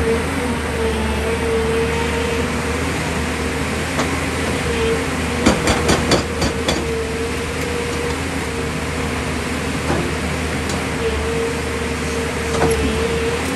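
JCB tracked excavator's engine running steadily while its hydraulic rock breaker hammers into stone, with a cluster of sharp knocks about halfway through.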